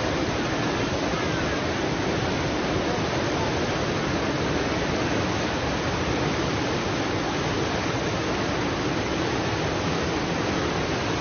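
Flash-flood torrent of muddy water rushing down a mountain river channel swollen by heavy rain, a loud, steady, unbroken rush of churning whitewater.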